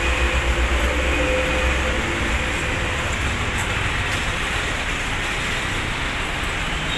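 Steady, noisy background roar, with a deep low rumble under it for the first two seconds or so that then fades away.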